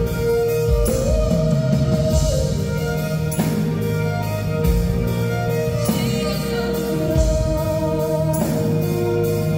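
Live band music: a man singing over a bowed violin and strummed acoustic guitar, with bass and drums underneath.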